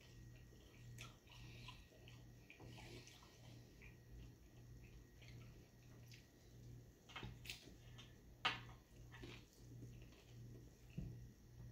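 Faint sounds of eating a taco: quiet chewing with scattered small clicks and crackles, the sharpest click a little past the middle, over a low hum.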